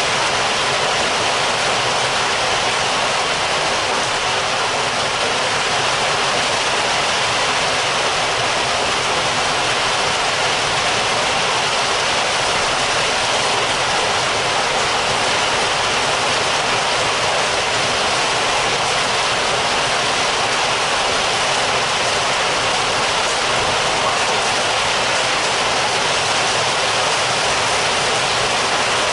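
Heavy rain heard from indoors: a steady, dense hiss of downpour that does not let up.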